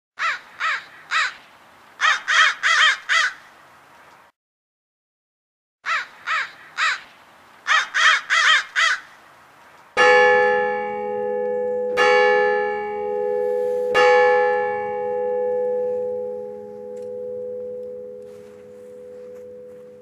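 A bird cawing: three single caws, then a quick run of five, the same pattern heard twice with a pause between. Then a large bell tolls three times, two seconds apart, its deep hum ringing on and slowly fading.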